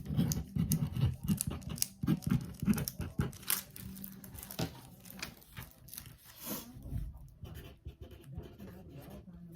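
Plastic-wrapped diamond painting canvas being handled: irregular rustling, crinkling and light clicks, busiest in the first few seconds and thinning out after.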